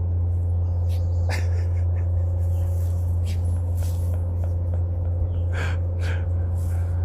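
Great Pyrenees snorting and breathing hard while burying a bone, with a few short noisy snorts or sniffs, over a loud steady low hum.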